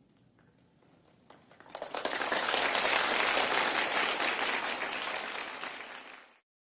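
Audience applauding in a concert hall: a few scattered claps about a second in swell quickly into full applause, which then cuts off suddenly near the end.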